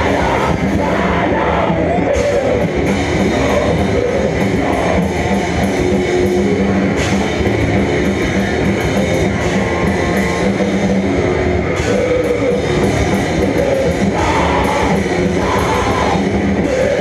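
Live rock band playing loud amplified music with electric guitar, bass and drums, heard without a break.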